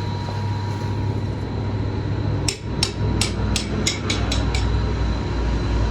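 Eight quick hammer blows on a steel truck wheel rim, starting about halfway through and coming a little faster toward the end, over a steady low hum.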